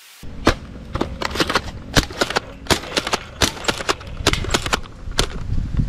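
Nerf Ranger pump-action dart blaster being pumped and fired at targets: an irregular string of a dozen or more sharp plastic clicks and snaps over a steady low rumble.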